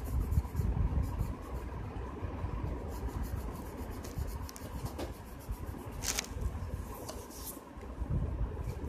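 Pencil scratching on paper while drawing, faint under a constant low rumble, with one sharp click about six seconds in.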